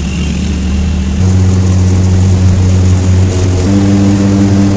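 Auto-rickshaw engine running as it drives along, heard from the passenger cab; its pitch steps up about a second in and again near the end.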